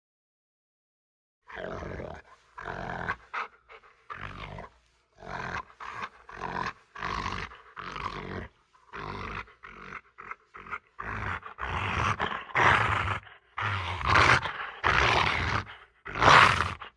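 A run of short animal growl and roar sound effects, one after another with brief gaps, getting louder toward the end.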